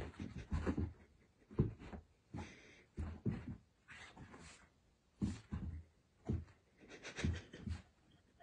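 Two small dogs playing, making short sounds in irregular bursts with brief pauses between them.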